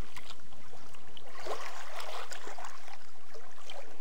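Water sloshing and trickling with scattered light clicks, swelling louder to a brief rush about one and a half to two and a half seconds in.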